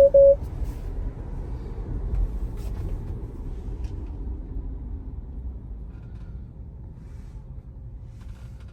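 Low road and tyre rumble inside a Tesla Model Y's cabin, slowly fading over several seconds. It opens with two short, loud beeps at the same pitch.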